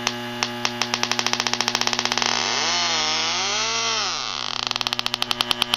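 Electronic refrigerant leak detector clicking, its ticks quickening into a rapid rattle, then sounding a wavering rising-and-falling alarm tone for about two seconds before the ticks pick up again: it is detecting refrigerant leaking from the evaporator coil. A steady hum runs underneath.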